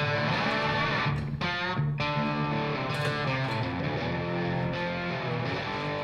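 Outro background music led by electric guitar.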